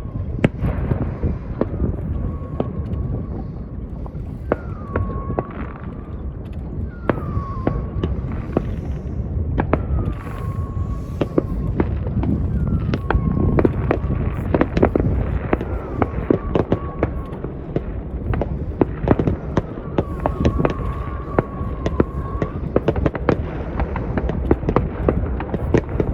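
Fireworks going off at a distance: a steady run of sharp bangs and crackling pops over a low rumble. A short whistle-like tone that dips and then holds recurs every couple of seconds.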